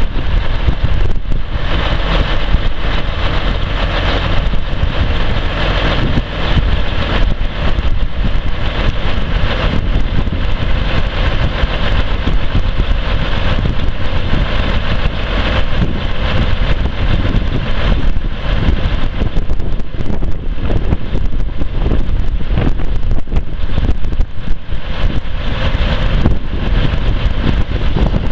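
Mack E6 11-litre inline-six diesel of a 1988 Mack R688ST running steadily at idle, heard loud and close.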